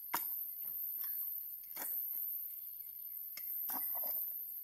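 Metal-bladed hand digger chopping into firm soil, about four sharp strikes over a few seconds with scraping of dirt between them.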